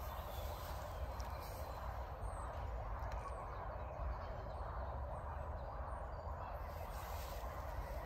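Outdoor park ambience: a steady noisy background with a low rumble, and a few faint bird chirps about two to three seconds in.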